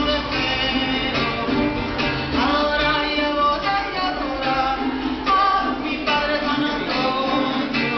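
A woman singing a Venezuelan folk song, holding long notes over a strummed acoustic string accompaniment.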